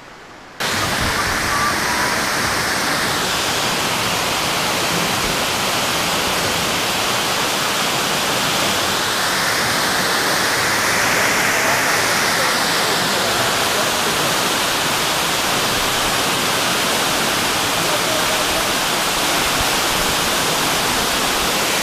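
Waterfall pouring into a pool inside a cave: a loud, steady rush of falling water that starts abruptly about half a second in.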